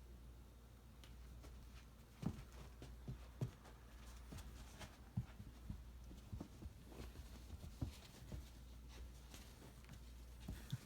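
A German shepherd puppy playing with a rubber Kong toy: scattered, irregular dull thumps and knocks as the toy is pushed and bumped around, the loudest a few seconds in.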